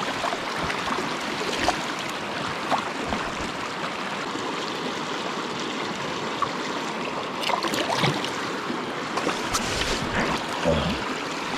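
Mountain trout river running with a steady rush of flowing water, with a few short sharp sounds over it near the end.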